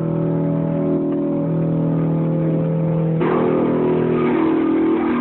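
Fender Stratocaster electric guitar played through a pedal board, sustaining long held notes that ring steadily with a buzzy, engine-like tone. The pitch shifts about a second and a half in, and again past three seconds, where a brighter, fresh attack comes in.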